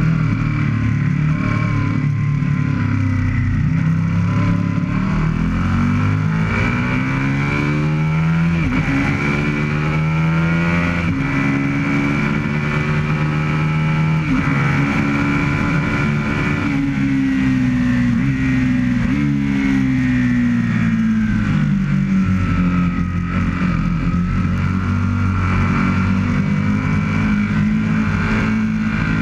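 Aprilia RSV Mille's V-twin engine heard from onboard at full throttle, its pitch climbing and dropping sharply at each upshift through the gears, then stepping up through several downshifts as the bike slows, and climbing again near the end.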